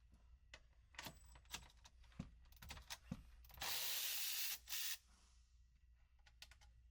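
Scattered clicks and clinks of tools on metal, then a power ratchet spins for just over a second in two bursts, loosening the top shock-mount bolts.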